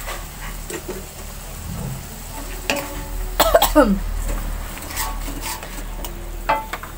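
Long metal spatula scraping and clinking against a steel wok while stirring a sizzling chilli spice sauce, the strokes loudest about halfway through.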